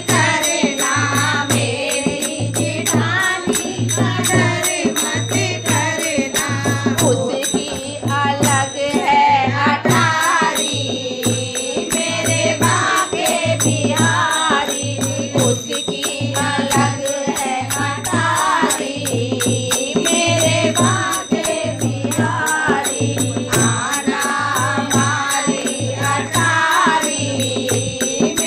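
Hindi devotional bhajan sung to dholak accompaniment, the drum keeping a steady beat with a low stroke about once a second under the singing voice.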